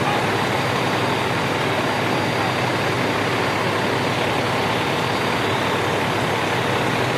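A heavy vehicle's engine idling steadily, with an even hiss over it.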